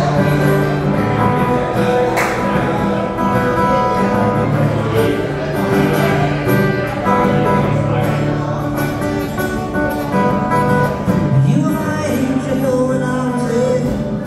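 Acoustic guitar strummed steadily, with a man singing along live into a microphone.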